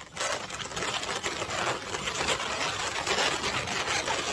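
Inflated latex modelling balloons rubbing against each other as a bundle of balloon stems is gathered and squeezed together by hand, a continuous rubbing noise that starts just after the beginning.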